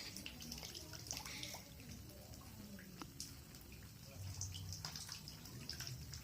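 Faint dripping water, with scattered light drips and small splashes.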